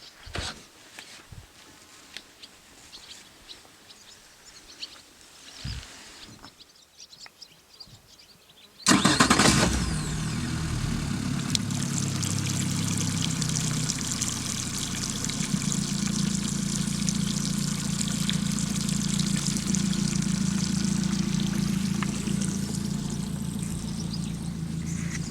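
A few faint clicks and knocks, then about nine seconds in a Yamaha F70 four-stroke outboard motor starts with a sudden loud burst and settles into a steady run.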